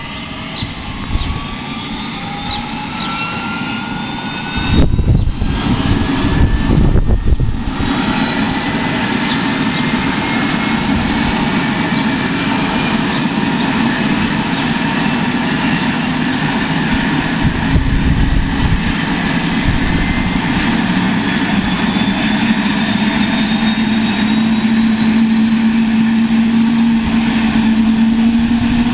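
Eurocopter AS350 helicopter starting up on the ground: the turbine engine's whine climbs slowly in pitch as the main rotor spools up, with a lower tone rising near the end. A loud low rumble comes through about five to eight seconds in.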